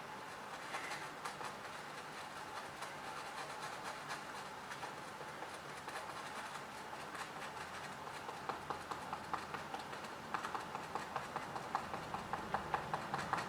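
A small wire brush scrubbing rapidly back and forth over a phone's clogged ear speaker grill, scratching the debris out of the holes. The strokes grow louder and more distinct in the second half.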